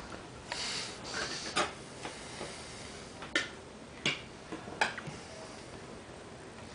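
Handling of an opened metal food can: a few sharp clicks and taps spread out, with a brief hiss about half a second in.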